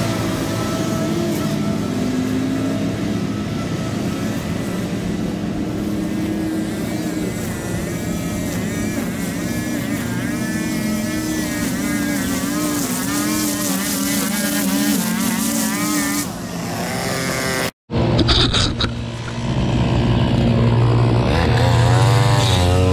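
Gas string trimmer engine running, its pitch rising and falling as it is throttled while cutting grass. It cuts out abruptly about three-quarters of the way through, then comes back closer and louder.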